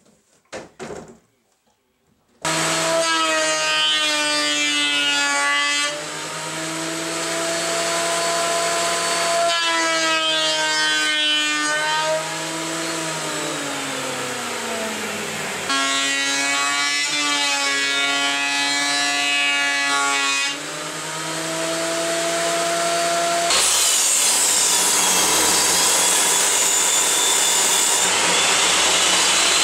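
Benchtop thickness planer starting up about two seconds in and planing spruce-pine-fir boards. Its motor whine shifts pitch with each pass and drops for a few seconds midway. About 23 seconds in, the sound changes to a table saw cutting the wood, a loud even hiss.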